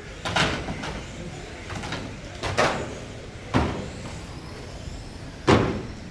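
1/12-scale electric GT12 RC cars racing on a carpet track, with a faint high motor whine and four sudden loud noises from cars close by, the loudest about five and a half seconds in.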